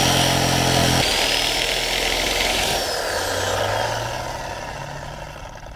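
Reciprocating saw (Sawzall) cutting through ABS plastic pipe. About a second in the cut ends, and the saw's motor winds down with a falling whine that fades out.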